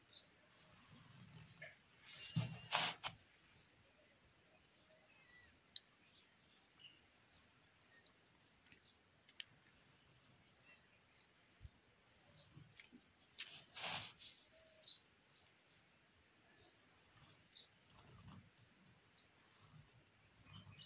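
Faint small birds chirping in short, high notes, scattered throughout, over the soft scratch of a ballpoint pen on paper. Two louder noises come about two and a half seconds in and again about fourteen seconds in.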